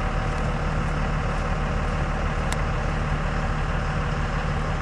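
Car engine and road noise heard from inside the cabin: a steady low drone. A brief click comes about halfway through.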